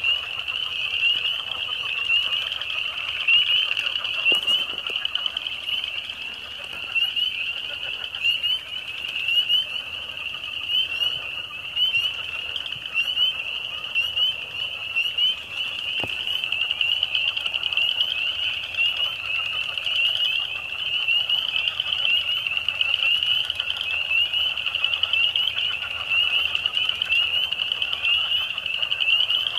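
A dense chorus of frogs: many high-pitched calls overlap into one unbroken spring chorus. A couple of faint clicks sound under it.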